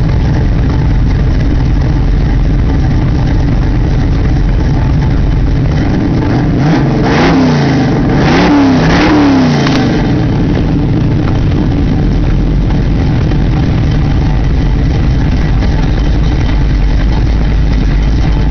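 Small-block Chevy 355 V8 with a big hydraulic Summit cam, running through headers, 2.5-inch true dual exhaust and Thrush mufflers, idling with a rumble. A few quick throttle blips rise and fall about seven to ten seconds in, then it settles back to idle.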